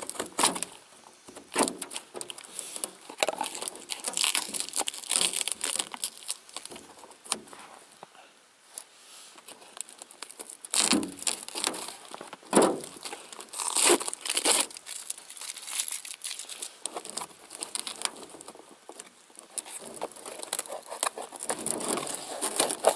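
Cardboard parcel being cut and torn open by hand: irregular scraping, ripping and crinkling of cardboard and packing tape, with a few sharper rips near the middle.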